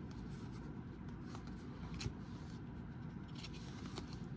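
Faint clicks and light scrapes of trading cards being handled and flipped through by hand, a few seconds apart, the clearest about two seconds in, over a steady low background hum.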